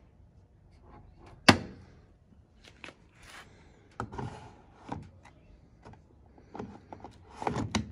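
Hard knocks and clacks of a new washing machine being handled during unpacking. One sharp clack about a second and a half in, then several lighter knocks and a short clatter near the end.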